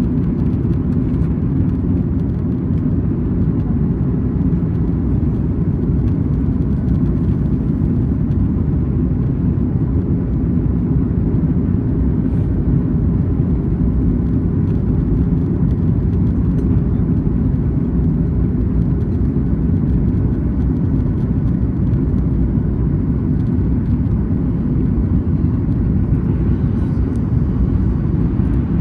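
Airliner cabin noise in flight: a steady low rumble of jet engines and rushing air, unchanging throughout.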